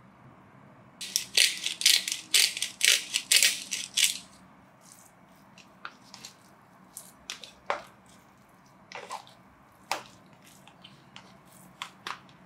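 A handheld salt-and-pepper grinder being twisted, giving a quick run of gritty grinding strokes for about three seconds. After that, a metal spoon stirring minced pork in a plastic tub makes scattered clicks and scrapes.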